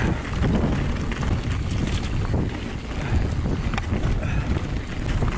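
Strong wind buffeting the camera microphone: a steady low rumble with a few short clicks scattered through it.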